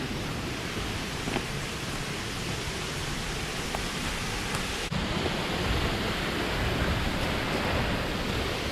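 Waterfall's falling water: a steady, dense rushing hiss, with a split-second dropout about halfway through.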